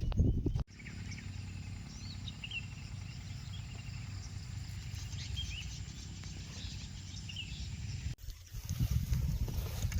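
Small birds chirping in short, scattered calls over a steady low rumble. The sound changes abruptly about a second in and again near the end, where a louder low rumbling noise takes over.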